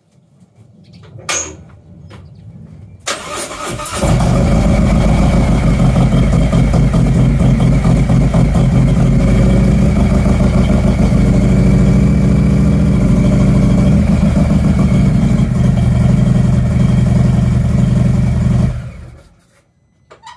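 A Harley-Davidson Road Glide Special's V-twin, fitted with a Bassani Road Rage 2-into-1 exhaust and an S&S 475 cam. It is cranked by the starter about three seconds in, catches, idles loudly and steadily for about fifteen seconds, then is switched off near the end. A short click sounds about a second in.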